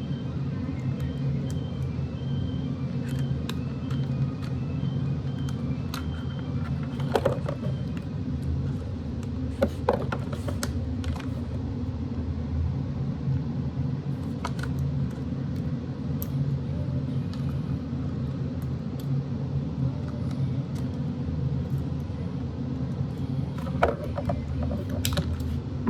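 A steady low hum runs throughout. Scattered sharp clicks and snips come from scissors cutting the hair dryer's wires and from plastic parts being handled, the loudest about a third of the way in and near the end.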